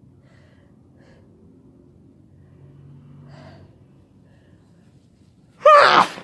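A person's sneeze near the end, a sudden loud burst with a voiced cry that falls in pitch, after a faint breath in about three seconds in; it is one sneeze of a sneezing fit brought on by illness.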